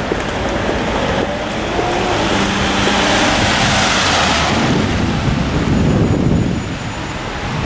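A car passing on a wet road, its tyres hissing and its engine humming, swelling to loudest about three to four seconds in and then fading, over steady rain.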